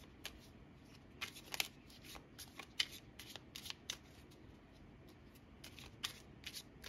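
Tarot cards being shuffled by hand: soft, irregular flicks and clicks of the cards, coming in a few short bunches.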